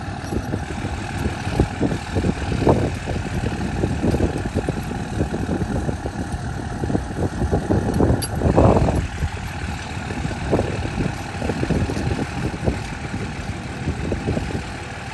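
Pickup truck engine idling steadily, with wind buffeting the microphone in an uneven low rumble.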